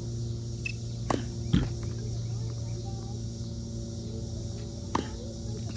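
Sharp knocks of a tennis ball on racket strings and the hard court: two about a second apart near the start, the second the loudest, and one more about five seconds in as a serve is struck. Under them runs a steady low hum.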